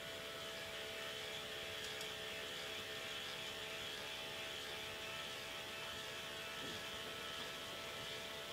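K'nex electric motor driving the machine's ball lift, running with a steady whir.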